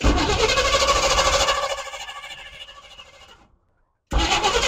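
Carbureted engine of a squarebody Chevrolet service truck firing and running briefly on fuel squirted into the carburetor by hand, then dying away within about three seconds; it fires again abruptly near the end. It only catches on hand-primed fuel, which the crew take as a sign it isn't getting fuel on its own.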